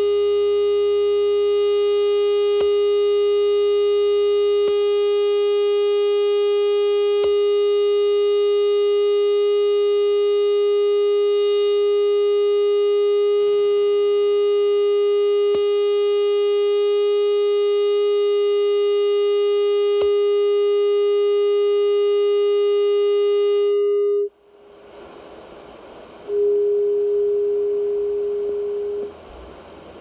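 A single electric guitar note held through a high-gain metal distortion pedal, sustaining at an even level with a bright stack of overtones. It cuts off suddenly about 24 seconds in, leaving the pedal's steady background hiss. Another note then rings and fades over a few seconds.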